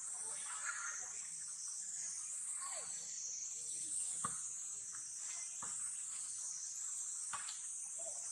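A steady high-pitched insect chorus, slowly wavering in pitch, with scattered light clicks and a few faint brief squeaks.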